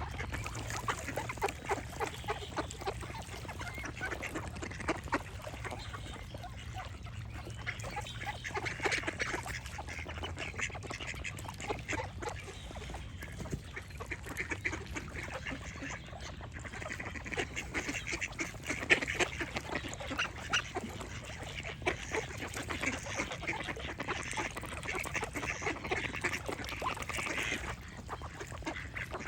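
Ducks quacking over and over in many short calls, with other birds singing in the background and a steady low rumble underneath.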